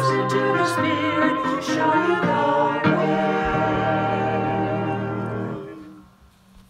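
Small choir singing together, ending on a long held chord that fades out near the end.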